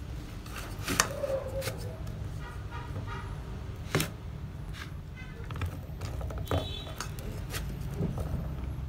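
A spoon clinking and scraping against a metal pot while stirring cooked rice. There are sharp clinks about a second in and again about four seconds in, with lighter taps between, over a steady low hum.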